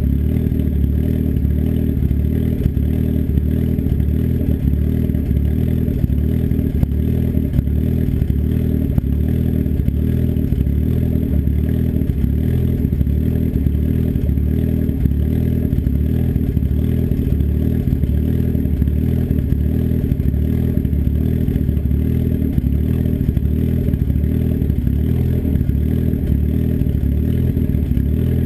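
Turbocharged engine with an S257 turbo and custom cams idling steadily after a cold start, its exhaust open-dumped through a 3-inch turn-down straight off the downpipe. The exhaust is loud and even, with no revs.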